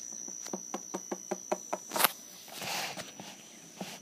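Plastic Littlest Pet Shop figure hopped along a wooden table: a quick run of light taps, about five a second, then a short rustle.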